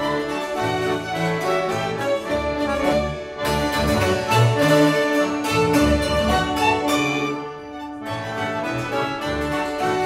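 Appenzeller folk music played by a small string band: two hammered dulcimers (Hackbrett) strike quick, ringing notes over violins, accordion and a plucked double bass. The music thins briefly a little before the end, then carries on.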